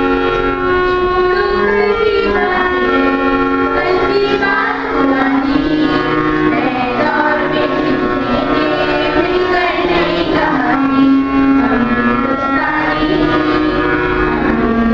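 Schoolchildren singing a song together into a microphone, their voices wavering over long, steady held notes from an accompanying instrument.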